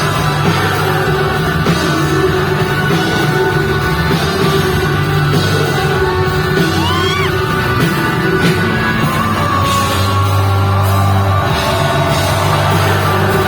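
Live pop-rock band playing loudly at a concert, with steady heavy bass and voices yelling and singing over it; a short sliding pitched sound about halfway through.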